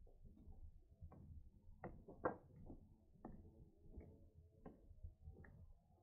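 Faint footsteps of someone walking on a trail, a soft step a little more than once a second, with light knocks and rustle; the loudest step comes a little past two seconds in.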